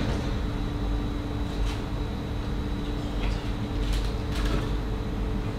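Steady mechanical hum of commercial kitchen equipment, holding a constant tone, with a few light clicks as a pan is handled at the stove.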